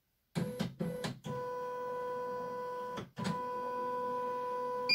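CNY E900 embroidery machine's motors running with a steady mechanical whine after a few clicks, pausing briefly about three seconds in and then resuming. A short electronic beep sounds right at the end.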